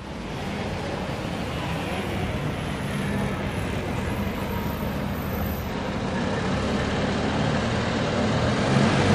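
City street traffic noise with a bus engine running close by, a steady low hum that grows slowly louder.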